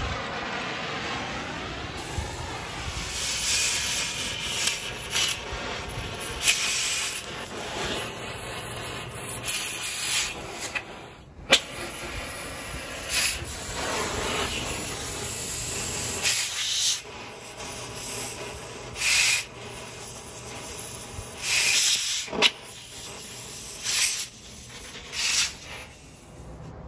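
Oxy-acetylene torch flame hissing steadily on steel, with repeated short surges of louder rushing hiss every second or two and one sharp click about halfway through.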